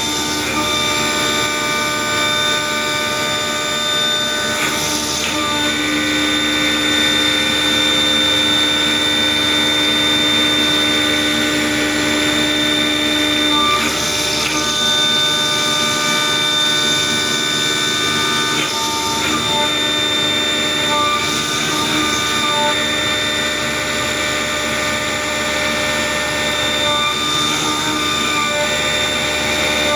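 CNC machine running: a steady mechanical whine made of several held tones that change pitch every few seconds as its motors move.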